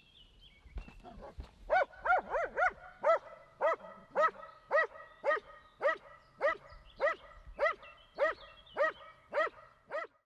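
Belgian Malinois guard-barking at a motionless helper, about seventeen single barks evenly spaced at roughly two a second, starting about two seconds in.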